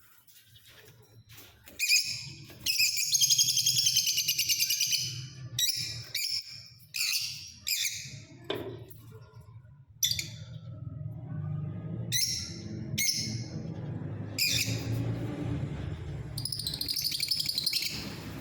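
Caged lovebirds and cockatiels calling, shrill and harsh: a long run of calls a couple of seconds in, then short separate squawks, and more chatter near the end. A low steady hum runs underneath.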